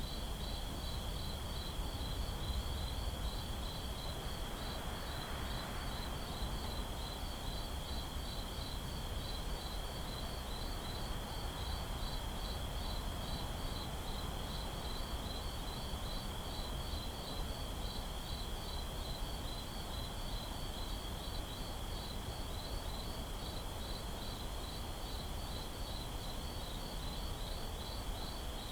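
Night-time crickets: one steady high trill with a row of regular, evenly spaced chirps just above it, over a steady low background rumble.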